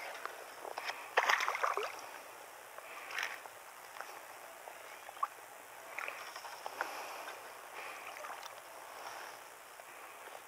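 A hooked bass splashing at the water's surface as it is reeled in and lifted out, loudest about a second in, followed by smaller scattered splashes and handling noises as the fish is held and unhooked.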